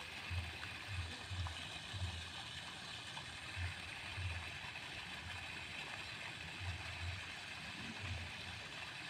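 Wind buffeting an outdoor microphone in irregular low thumps, over a steady high hiss of open-air ambience.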